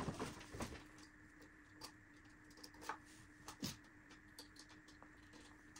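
Faint, scattered light clicks and taps of test leads and plugs being handled on an electronics bench, over a faint steady hum; the sharpest click comes a little past halfway.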